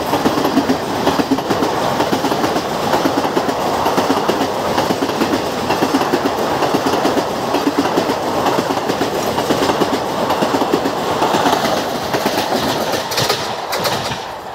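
ICF passenger coaches rolling past at a slow pace, their wheels clattering over the rail joints in a steady clickety-clack. The sound drops away near the end as the last coach goes by.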